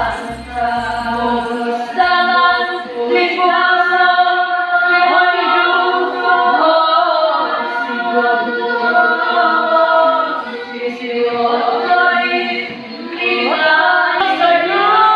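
A group of voices singing a traditional Dusun gonding chant a cappella, in long held notes that slide and waver between pitches.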